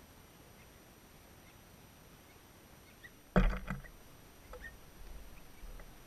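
Faint outdoor hiss, broken about halfway through by a sudden loud knock with a short clatter, followed by a few faint high chirps.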